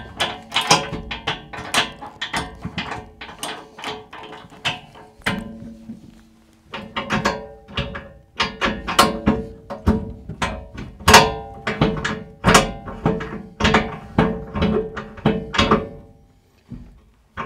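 Repeated sharp metal clanks and clunks as the latch handles of a B&W Companion fifth-wheel hitch's puck mounts are thrown open and shut, many strikes followed by a brief metallic ring; a short lull about six seconds in. The latch tension is being tested, with one latch judged to need loosening.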